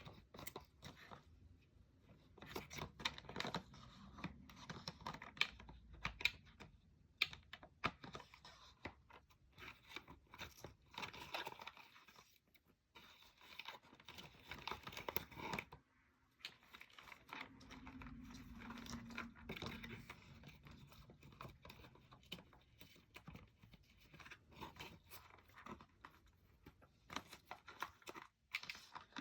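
Packaging being torn open and handled by hand: irregular tearing, rustling and crinkling with scattered clicks.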